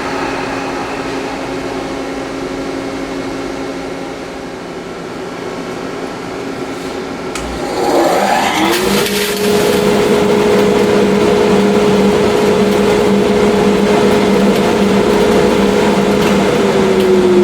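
Electric motor of a woodworking machine, a table saw or its dust collector. It hums steadily at first, then about eight seconds in another start brings up a whine that rises quickly to full speed and holds steady, louder than before. Near the end the pitch sags slightly as it begins to slow.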